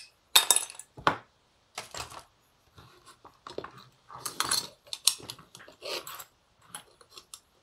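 Irregular clicks, scrapes and clinks of hand tools working a small metal antenna connector on a workbench, in short bursts about a dozen times.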